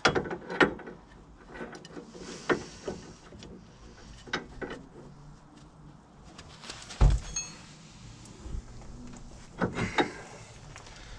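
Scattered metallic clicks and knocks from an adjustable spanner being fitted to and worked on a nut on a steering track rod, with a heavier thump about seven seconds in and a quick run of clinks near the end.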